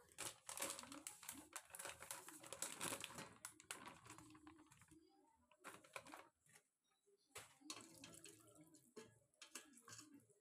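Plastic food packet crinkling and crackling as frozen veg chaap is shaken out of it, densest in the first few seconds. Near the end comes soft splashing as a hand moves the pieces about in a steel bowl of water.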